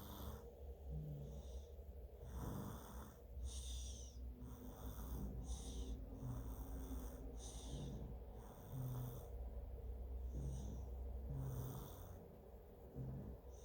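Twins snoring in their sleep, with breaths coming every second or so in an uneven, overlapping rhythm.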